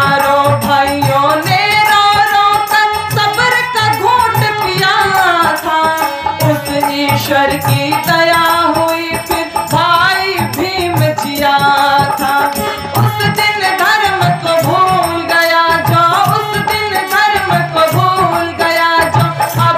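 Hindi devotional bhajan: a harmonium plays the melody over a steady dholak beat, with a woman's singing voice.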